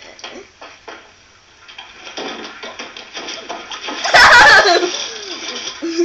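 Old slapstick film soundtrack played back through a laptop's small speaker: scattered knocks in the first second, then a loud, high wavering cry about four seconds in.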